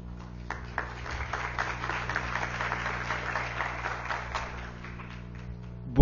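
Audience applauding, starting about half a second in and dying away near the end, over a steady low hum.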